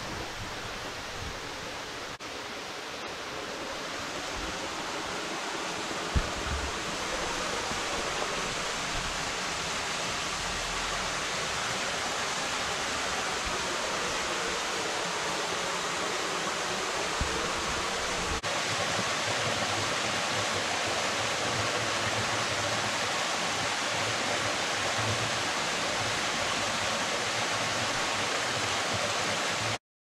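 Low-flowing waterfall splashing steadily into its rocky plunge pool as an even rush of water, cutting off abruptly near the end.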